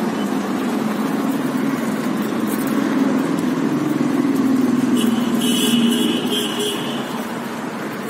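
Steady hum of city road traffic, swelling for a few seconds as a vehicle passes and then easing off, with a brief high-pitched squeal about five seconds in.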